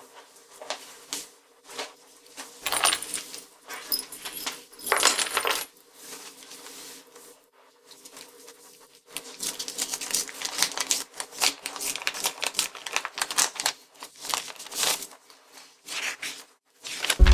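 Keys clinking on a counter top, then the crinkling and rustling of a paper envelope being handled and opened and a folded sheet drawn out. The rustling is densest in the second half.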